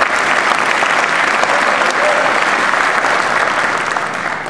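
An audience applauding, a dense steady clapping that begins to die away near the end.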